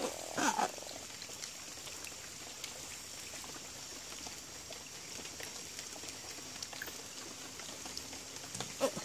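Faint steady outdoor background with a constant high-pitched whine and a few small scattered clicks, after a brief vocal sound from a man about half a second in.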